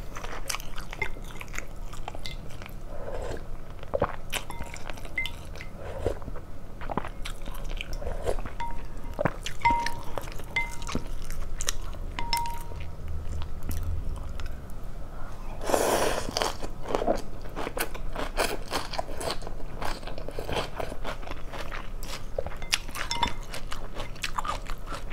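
Close-up chewing and crunching of chicken offal (gizzard and liver) in phở noodle soup, with chopsticks and a spoon clicking against a glass bowl. A brief louder burst of noise comes about two-thirds of the way through.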